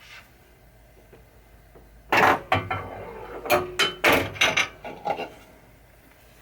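2020 American Pinball Hot Wheels pinball machine firing its solenoid coils one after another in a ball search: a run of about eight sharp mechanical clacks starting about two seconds in and lasting about three seconds. The machine is searching because it cannot find its balls.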